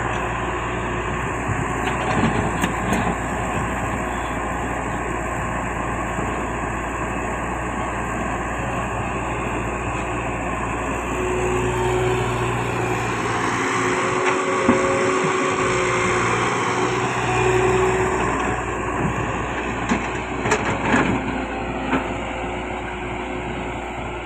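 Heavy earthmoving machinery's diesel engine running steadily under load, with a steady whine rising over it for several seconds in the middle. Short metallic clanks sound about two seconds in and several more near the end.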